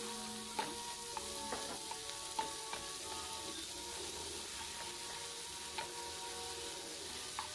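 Chopped yardlong beans (sitaw) with garlic and onion sizzling in hot oil in a nonstick frying pan as a spatula stirs them. The spatula clicks and scrapes against the pan now and then, about half a dozen times.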